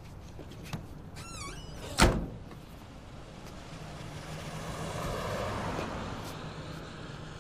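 An old pickup truck's steel door squeaks briefly on its hinges and is then slammed shut with one loud bang about two seconds in. A steady low hum of street noise runs underneath.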